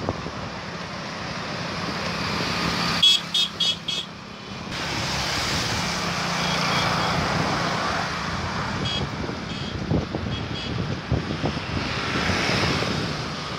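Road and traffic noise heard from a moving vehicle, with wind on the microphone. About three seconds in, a vehicle horn beeps four times in quick succession, loud and high-pitched, and fainter horn beeps follow later.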